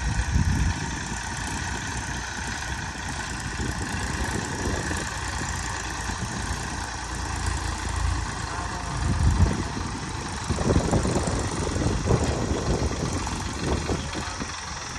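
Massey Ferguson 241 DI tractor's three-cylinder diesel engine running steadily as it pulls a tillage implement across the field, its low rumble swelling unevenly in the second half.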